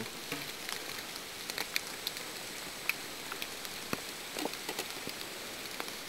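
Steady rain: an even hiss with many sharp raindrop ticks scattered at random.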